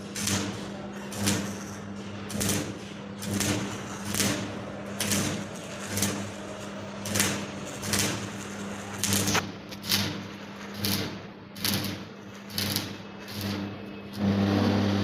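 Repeated sharp metal strikes, roughly one every 0.7 seconds, like hammering on steel, over a steady low electrical hum.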